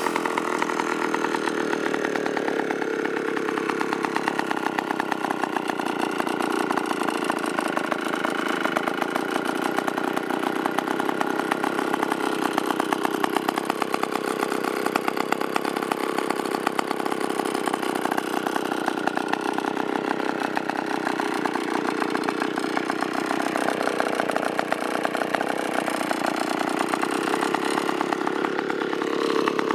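1951–53 IEL HA/HB gear-drive chainsaw's 85cc two-stroke engine running at a steady speed, its pitch wavering and sagging lower for a couple of seconds about three-quarters of the way through.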